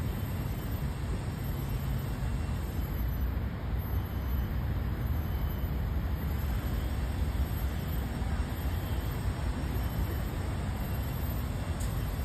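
Steady low outdoor background rumble with no distinct event.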